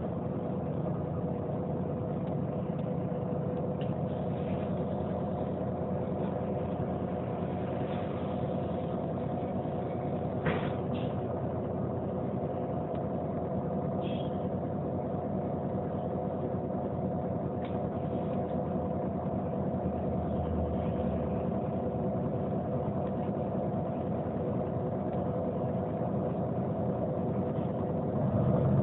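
Neoplan N 4416 city bus's diesel engine idling steadily, with two short clicks about ten seconds in.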